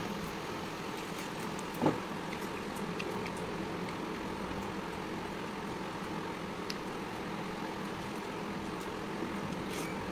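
Electric fan running with a loud, steady whir and hum. A single knock about two seconds in stands out above it, with a few faint clicks.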